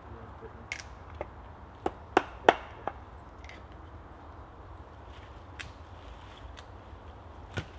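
Axe blows on a log post and beam: a quick run of about six sharp wooden knocks in the first three seconds, then a few fainter, widely spaced taps.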